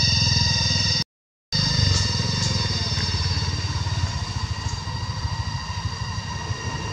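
A small engine running steadily: a fast low pulsing rumble with a constant high whine over it. About a second in, it drops out to silence for half a second.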